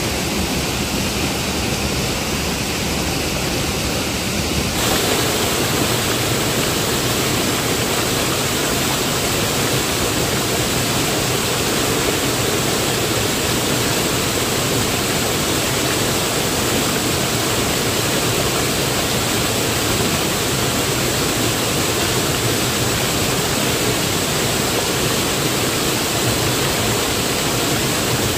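Steady rush of a rocky mountain stream, water running over and between boulders; the sound grows fuller about five seconds in.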